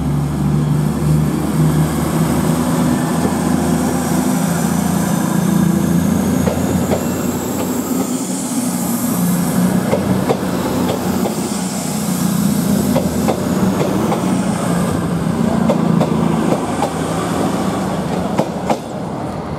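Diesel train moving slowly through the station: the engine runs steadily, wheels click over rail joints, and a faint high wheel squeal comes and goes around the middle.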